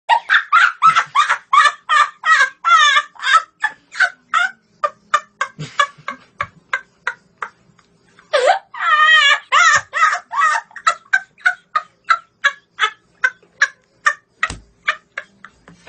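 Boys laughing hard: a long string of rapid 'ha-ha' pulses, about four a second, high-pitched and cackling. A fresh louder burst comes about eight seconds in, then the pulses slow and tail off.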